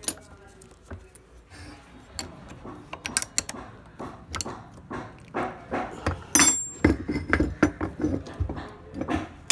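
Ring spanner clicking and clinking on the terminal nut of a Tata Ace starter motor's solenoid as the nut is tightened, in quick runs of small metallic clicks. A sharp metal clatter about six seconds in, and knocks as the starter housing is handled near the end.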